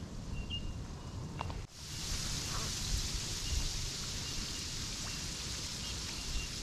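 A massed army of light-blue soldier crabs scuttling together across wet sand, making a steady soft hiss like light rain. The hiss comes in after a brief drop about a second and a half in, with a low rumble underneath.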